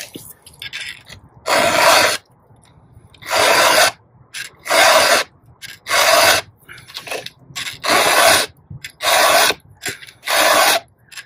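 Round file rasping across a chainsaw chain's cutter teeth during hand sharpening: seven forward strokes in a steady rhythm, each about half a second long, with a longer pause near the middle and faint scrapes between strokes.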